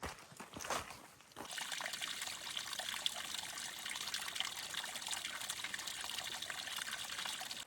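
A few footsteps, then a steady trickle of running water that starts abruptly about a second and a half in and cuts off suddenly.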